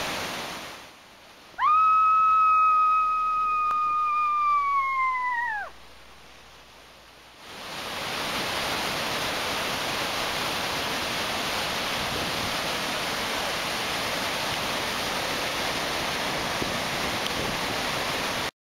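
A large waterfall runs with a steady rushing roar. Near the start a single high, whistle-like tone is held for about four seconds and then slides down in pitch as it ends; it is the loudest sound.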